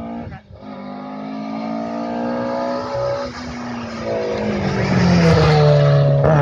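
Rally car engine at full throttle, changing gear about half a second in and again around three seconds, and growing louder as the car comes close.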